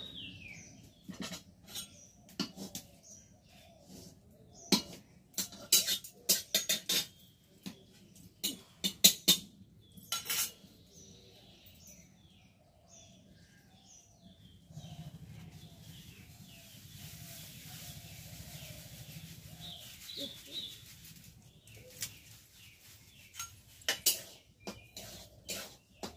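Metal spatula clinking and scraping against an iron kadai in quick irregular strokes while stirring over a wood fire, with a steady hiss for several seconds midway. Birds chirp in the background.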